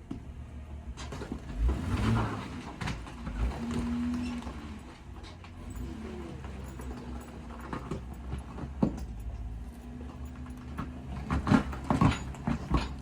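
Jeep engine running at crawling speed over rock, rising briefly about two to four seconds in, with scattered knocks and scrapes of tyres and underbody on rock and a quick run of sharp knocks near the end.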